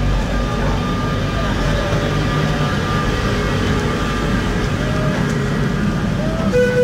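Steady low rumble and hum from a vintage Sóller electric tram close by, with a thin steady whine above it.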